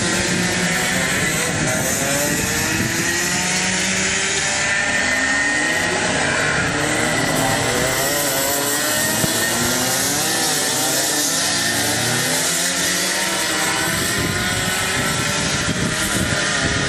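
Several racing go-kart engines running at high revs as karts race past, their pitch rising and falling as they brake and accelerate.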